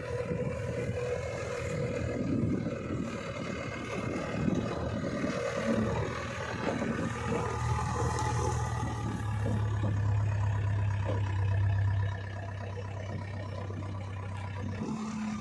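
Diesel engine of a JCB 3DX backhoe loader running under load while it loads mud, with scraping and clattering over the steady engine hum. The engine note grows louder and then drops back about twelve seconds in.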